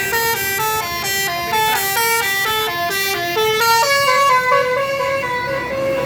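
Tour bus telolet horn, a Basuri multi-note air horn, playing a quick melody of short stepped notes that changes to a few longer held notes in the last couple of seconds.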